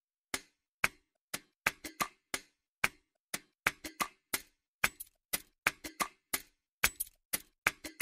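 Dry, sharp percussion clicks in a repeating syncopated rhythm, about two to four a second, each with a short ringing tail, playing alone as the percussion intro of a music track.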